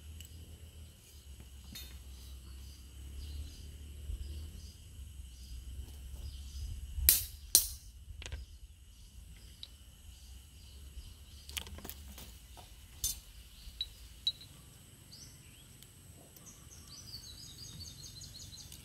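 A hammer striking a thin metal rod laid on a rock: two sharp metallic clinks about seven seconds in, then a few lighter taps. Birds chirp near the end.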